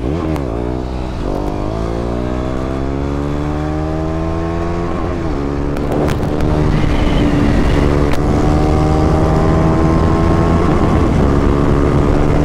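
KTM Duke 390 single-cylinder engine under hard acceleration. Its pitch climbs, drops at an upshift about five seconds in, then climbs again more slowly, getting louder as the bike picks up speed.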